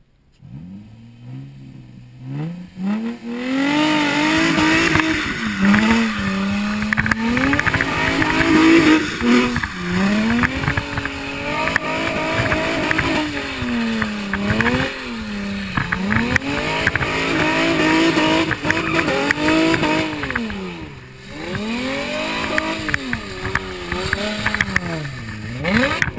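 Car engine revved hard through a burnout, its pitch building in the first few seconds and then climbing and dropping over and over, every couple of seconds, with the spinning rear tyres hissing underneath.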